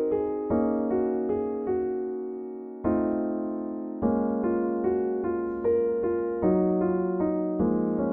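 Pianoteq 9 physically modelled software piano playing slow chords in the middle register. Each chord is struck, left to ring and fade, then followed by the next, about one a second.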